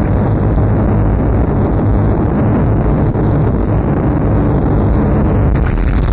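Harsh noise music: a loud, unbroken wall of distorted electronic rumble and hiss, with a slow wavering sweep in its upper range.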